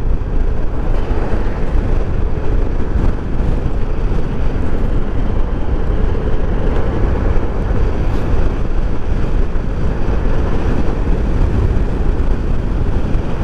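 Yamaha NMAX 155 scooter at riding speed, about 60 km/h and gaining slightly: steady rush of wind and road noise with the single-cylinder engine's hum beneath it.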